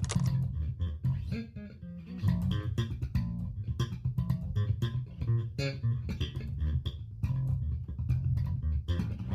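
Intro music: a plucked bass guitar playing a busy run of short notes.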